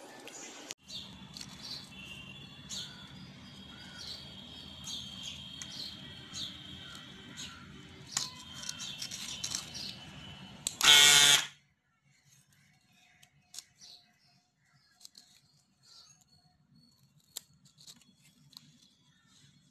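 Small brushed DC motor of a homemade fish-tank pump running with a steady hum and high whine. About eleven seconds in there is a brief loud burst of noise, and the motor stops. After that come only faint clicks and taps as the plastic pump is handled.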